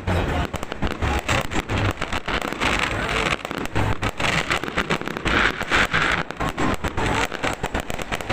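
Fireworks going off in a dense, unbroken barrage of rapid bangs and cracks, with bursts of hissing crackle twice along the way.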